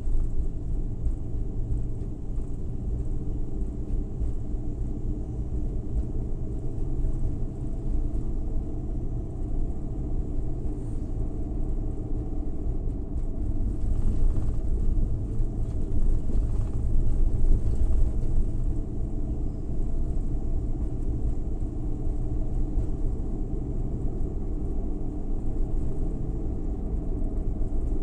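Suzuki Every Wagon kei van's 660 cc three-cylinder engine and road noise while driving: a steady low rumble that swells a little about halfway through.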